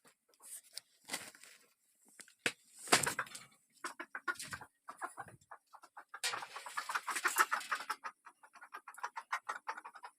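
Chickens clucking, mixed with irregular rustling and tapping noises that come in bursts, the busiest from about six to eight seconds in.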